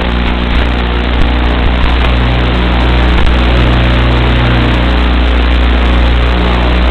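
Steady, loud low drone with hiss, unchanging, as picked up by the onboard FPV camera of a UMX Habu model jet.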